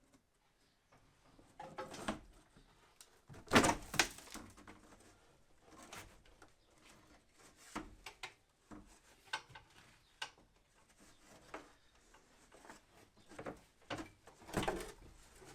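Scattered knocks and clunks at irregular intervals, the loudest two close together about three and a half seconds in and another near the end.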